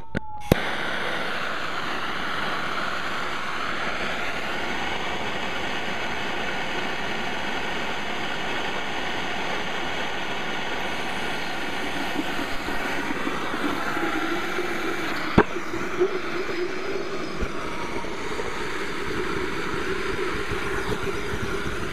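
Steady hissing of compressed air spraying oil through the siphon atomizing nozzle of a homemade waste oil burner. From about twelve seconds in the oil mist catches and a lower, fluttering rush of flame joins the hiss, with one sharp click a few seconds later.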